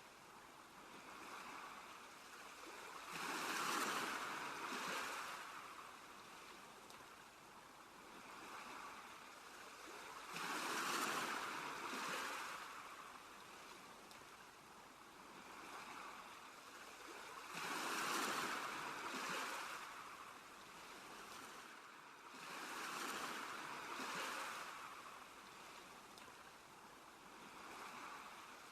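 Ocean waves breaking and washing up a shore, swelling and fading about every six to seven seconds, four times in all.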